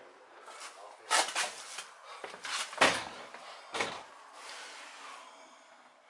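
Wooden door being handled and pushed open: a run of knocks and clatters, the loudest a heavier thud about three seconds in, and a last knock near four seconds.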